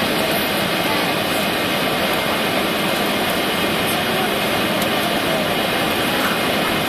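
Tupolev Tu-204 airliner cabin noise: a steady, even rush of jet engine and airflow noise heard from a window seat on descent.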